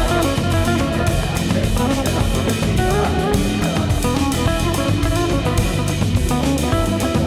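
Background music with electric guitar, bass and a steady drum-kit beat.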